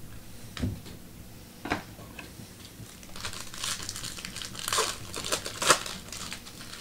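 Trading-card packs and cards being handled: a couple of sharp clicks, then rustling, crinkling bursts, the loudest near the end.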